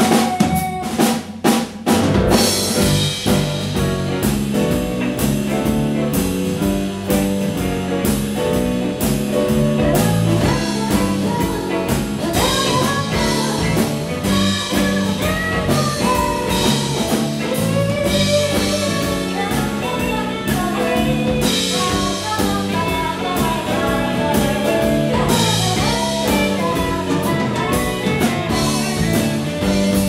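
Live band music: a few hard, accented hits in the first two seconds, then a steady drum-kit groove under acoustic guitar.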